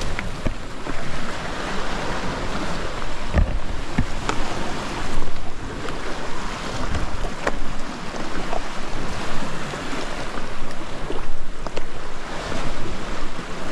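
Sea waves surging and splashing, with wind buffeting the microphone and a few short knocks scattered through it.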